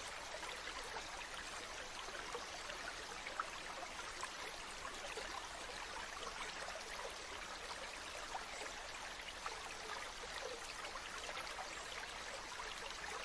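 Steady babble of running water from a small stream, an even hiss flecked with tiny splashes.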